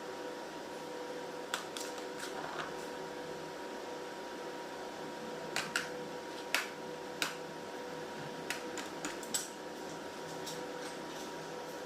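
A steady low hum with a faint even tone runs throughout, with a scattering of light clicks and taps, most of them in the middle of the stretch, typical of small tools and utensils being handled on a work surface.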